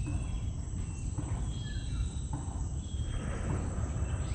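Insects trilling in a steady high-pitched drone over a constant low rumble, with a few faint short chirps.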